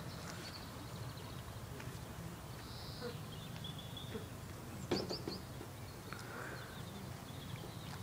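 Small birds chirping now and then over a steady low rumble, with one sharp knock about five seconds in.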